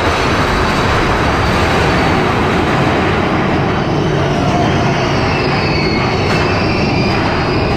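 Big Thunder Mountain Railroad mine-train roller coaster running along its track, heard from on board: a loud, steady rumble and rush of the moving cars, with a faint high squeal about halfway through.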